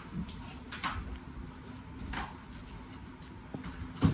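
Quiet room with a few scattered small clicks and knocks, and one louder knock near the end.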